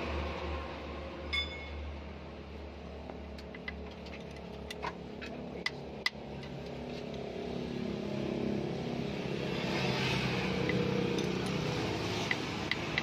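Hand tools clicking against the rocker arms as a ring spanner and screwdriver work the rocker-arm adjusting screws and locknuts on a diesel cylinder head. There are a few sharp clicks and one ringing metallic chink about a second and a half in, over a steady low hum.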